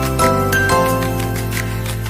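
Background music: a light instrumental track with held chords that change a few times, over a steady light beat.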